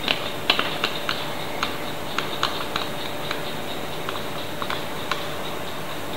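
Electric hand mixer on a stand running steadily while whipping cream as condensed milk is added, with a dozen or so irregular light clicks over the first five seconds.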